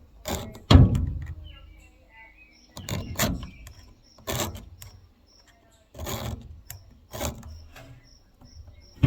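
A series of short knocks and rattles, about six spread over several seconds, each dying away quickly.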